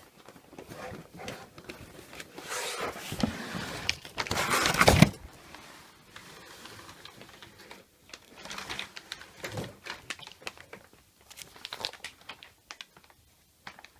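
A cardboard box being opened and its packaging handled: irregular rustling and crinkling with scattered clicks, loudest about four to five seconds in.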